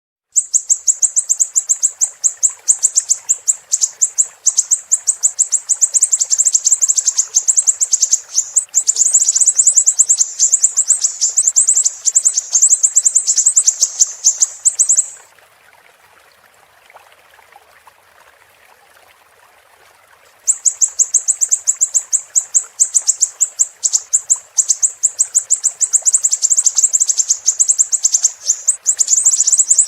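Siri-siri bird singing a sharp, high-pitched, fast trill of rapidly repeated notes in two long bouts, broken by a pause of about five seconds midway. A faint steady hiss runs underneath.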